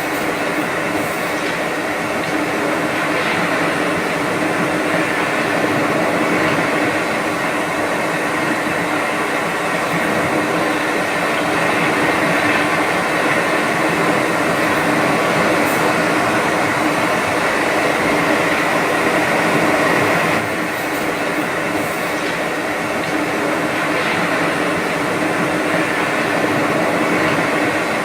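Steady, dense hum with several held tones over a rushing noise, like machinery running continuously. It eases slightly in level about twenty seconds in.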